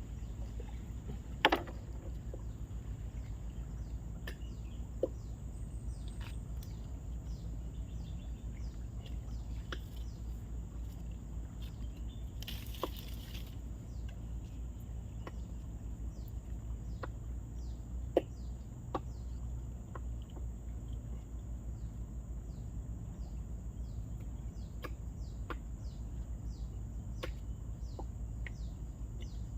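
Outdoor riverbank ambience: a steady high thin drone over a low hum, with many short falling chirps and a few sharp clicks, the loudest about a second and a half in.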